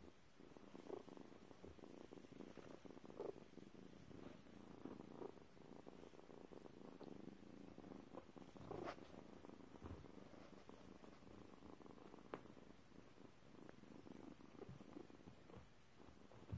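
Tabby cat purring softly and steadily, close to the microphone.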